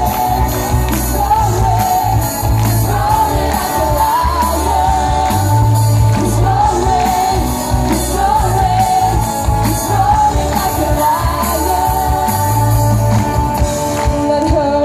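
Live band with a lead singer playing through a PA, heard from within the audience: a wavering sung melody over a heavy bass and cymbals.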